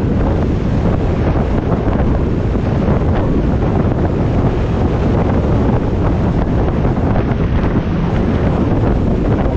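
Steady, loud wind rushing over the microphone of a camera on a motorcycle at road speed.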